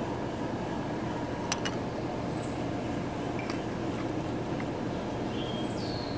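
Steady low mechanical hum with an even background rush, two light clicks about a second and a half in, and a few faint high chirps that dip in pitch, like small birds.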